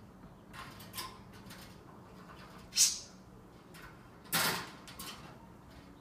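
African grey parrot climbing down the outside of a wire cage, its beak and claws scraping and rattling the metal bars in a few short scrapes, two of them louder: a sharp one just under three seconds in and a longer one about four and a half seconds in.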